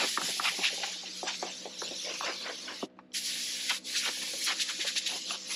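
Compressed-air blow gun hissing in two long blasts with a short break about three seconds in, blowing dust out of a 4x4's interior, over a steady low hum.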